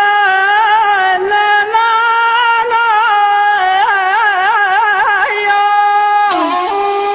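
A Middle Eastern wind instrument plays a held, ornamented melody in a Tunisian Bedouin folk song. It has quick trills in the middle of the passage, and a brief dip in pitch about six seconds in.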